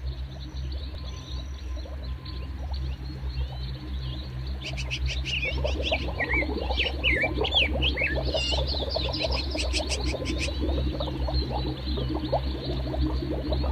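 A chorus of animal calls, frog-like croaking pulses mixed with quick chirping calls that glide up and down, over a steady low hum. The calls grow much busier about five seconds in.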